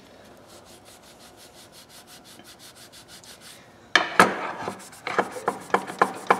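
A cloth rag rubbing metal oil filter pliers in faint quick strokes. About four seconds in, the pliers knock down onto the countertop, then the rag scrubs their handles in brisk, sharp strokes about four a second.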